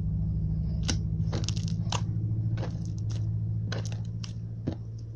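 Slime being squished and worked by hand, giving sharp wet pops and clicks every half second or so, over a steady low hum.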